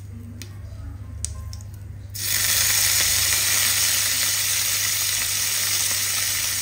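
Mustard seeds popping now and then in hot coconut oil in a stainless steel pan. About two seconds in, curry leaves hit the oil and set off a sudden loud, steady sizzle.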